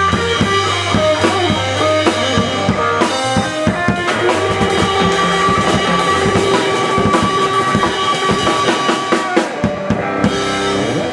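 Live rock band playing: a drum kit with kick, snare and cymbals keeping a steady beat under a sustained electric guitar line.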